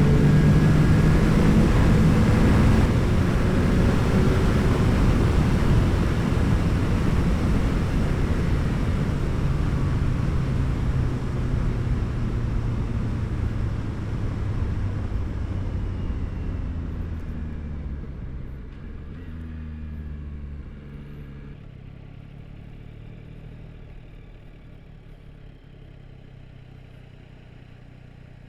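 Yamaha R9's 890 cc three-cylinder engine through an Akrapovic exhaust as the bike slows. Wind noise and engine sound fade steadily and the engine note mostly falls, with a few short rises. The wind drops away sharply past the middle, leaving a low, steady engine note.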